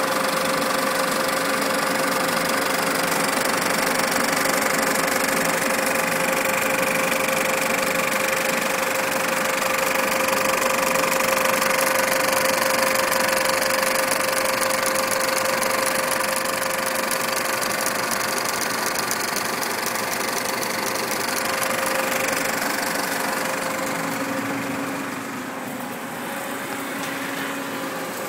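35mm film projector running with film threaded through its sprockets and rollers, a steady mechanical running sound with a held hum-like tone. It gets quieter about three-quarters of the way through.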